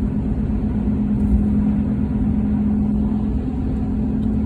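Steady drone of a pickup truck driving, heard from inside the cab: engine and road noise with a constant low hum.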